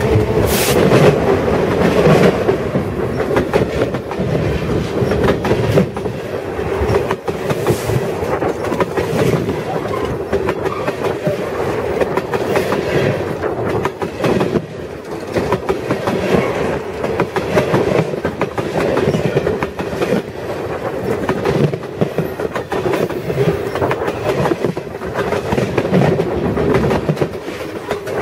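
Freight cars rolling directly over a microphone set between the rails: a loud steady rumble of steel wheels on rail, with a steady hum and many irregular clicks and knocks as the wheels pass over.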